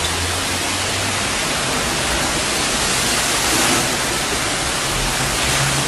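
Heavy tropical downpour and flash floodwater pouring through a street, a loud steady hiss.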